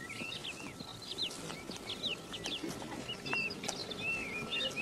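Small birds chirping outdoors: many short, quick notes and little downward-sliding calls, scattered irregularly. A faint steady thin tone runs underneath.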